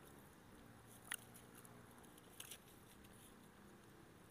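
Near silence, with two faint clicks of a person chewing a mouthful of soft buah nona (custard apple) flesh, one about a second in and one near the middle.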